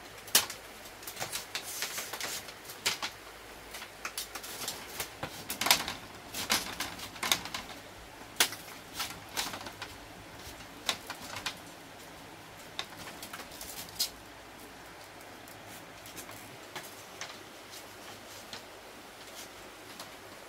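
Split bamboo strips clicking and rattling against each other as they are woven by hand into a lattice panel. The clicks come thick and irregular through the first half, then thin out to scattered taps.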